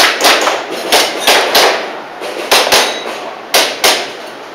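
Airsoft pistol firing a string of sharp shots, mostly in quick double taps, about nine in all, as a practical-shooting course of fire is run against the timer.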